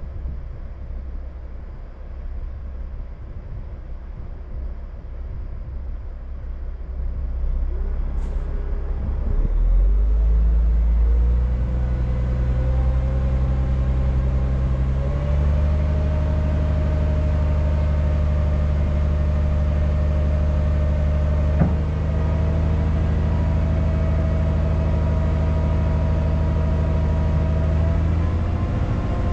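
Log truck's diesel engine: a low rumble at first, then about ten seconds in the engine speed rises in steps and holds at a steady fast idle, with one sharp click a little past twenty seconds.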